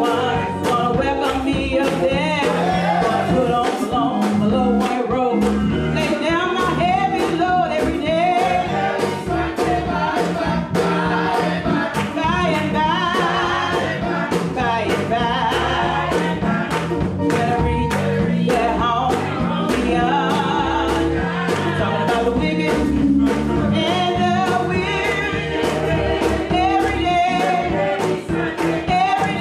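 Gospel church choir singing with band accompaniment, with a steady beat and a moving bass line under the voices.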